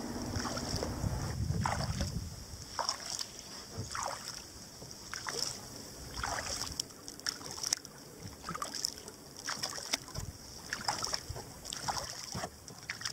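Sea kayak's double-bladed paddle dipping into the water stroke after stroke: a short splash with drips about once every half second to second. A low rumble in the first couple of seconds.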